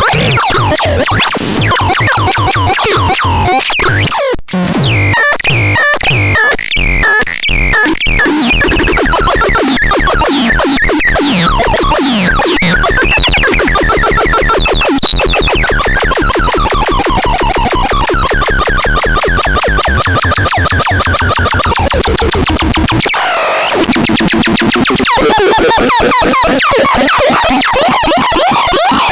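Electronic synthesizer sounds from the LEBKON C220L: dense warbling, sweeping tones over a fast pulsing beat. The sound cuts out briefly about four seconds in, and the deep bass drops away for a moment near the end.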